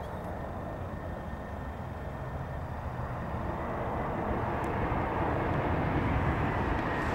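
Jet noise from an Airbus A340-300's four CFM56 turbofan engines on final approach, growing steadily louder as the airliner nears, with a faint steady whine.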